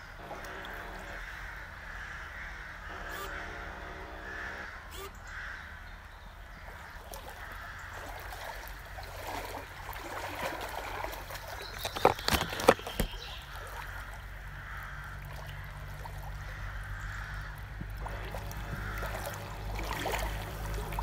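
Small motor of a remote-controlled boat humming as it cruises on a river, with water washing along the hull and a bird calling. A little past the middle comes a quick cluster of sharp knocks, the loudest sound.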